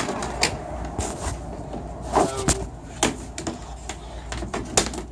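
Clicks and knocks from the porch enclosure's window panels being handled and pushed up, with a brief squeak about two seconds in.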